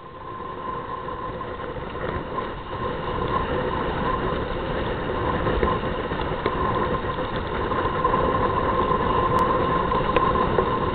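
Wind blowing over the microphone and water rushing past the hulls of a Hobie Cat catamaran under sail: a dense, steady rush with a faint steady hum, growing louder over the first few seconds.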